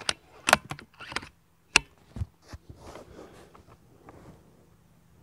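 Sharp metallic clicks and clacks of a Benjamin Bulldog .357 PCP air rifle being worked and loaded, then a single sharp shot just under two seconds in, followed about half a second later by a short low thud downrange.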